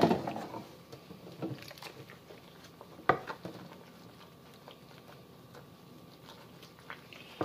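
Dishes and utensils being handled at a kitchen sink: a burst of clatter at the start, then scattered light knocks and clicks, with a sharper knock about three seconds in.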